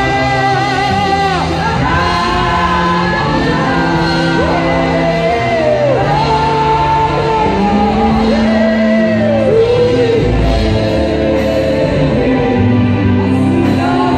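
Live church music: a man singing into a microphone in long held notes that slide up and down, over steady instrumental accompaniment with sustained bass notes.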